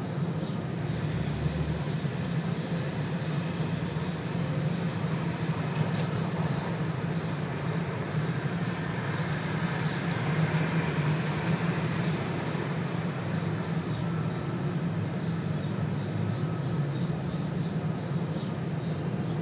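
Steady road noise of a car driving: tyre and engine rumble that holds even throughout, with a strong low drone.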